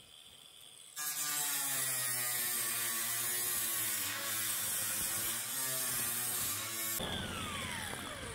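Electric power tool motor running at speed for about six seconds, a whine wavering slightly under load over a hiss. It is then switched off and winds down in a falling whine.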